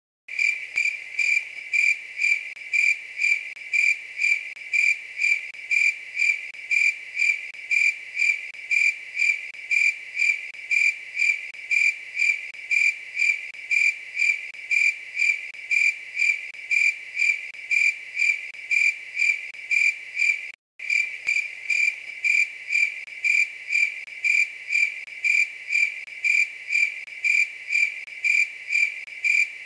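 A night-singing insect chirping in a steady, even rhythm, about two high, clear chirps a second. The chirping cuts out for a moment about two-thirds of the way through.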